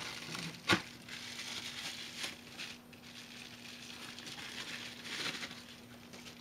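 Bubble wrap and small plastic parts bags crinkling as they are handled and unwrapped, with one sharp click near the start.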